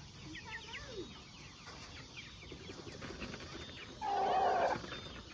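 A flock of chickens, including young Red Ranger meat chicks, calling: many short high peeps and chirps with a few falling calls. About four seconds in, one loud harsh squawk lasts under a second.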